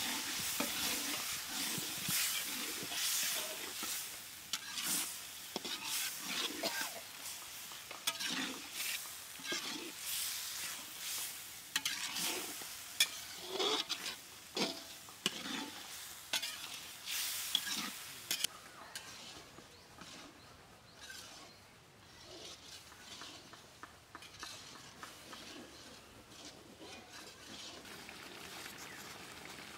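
Metal spatula scraping and stirring chopped tomatoes and green peas sizzling in a large metal wok, in many irregular strokes. The stirring stops a little over halfway through, leaving a quieter, steady cooking hiss.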